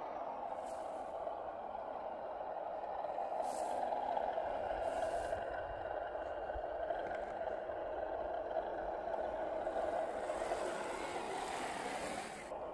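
Electric motors and gear trains of 1/10-scale RC crawler trucks whining steadily as they crawl over dry, rutted dirt, a little louder in the middle.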